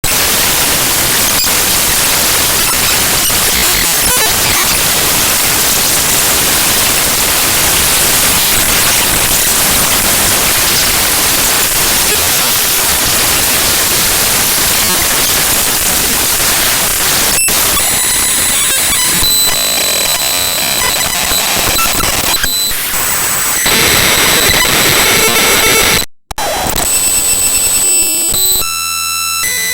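Raw binary data of the mspaint.exe program file played back as audio: a loud, harsh static-like hiss, which a little past halfway turns into buzzy patterned noise with steady high whistling tones. There is a brief dropout to silence near the end, followed by a choppy repeating pattern.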